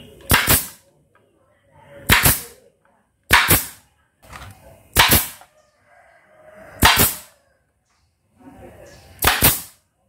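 Pneumatic brad nailer firing six times, each shot a sharp crack of air as it drives a brad into a wooden plank, about every one and a half to two seconds.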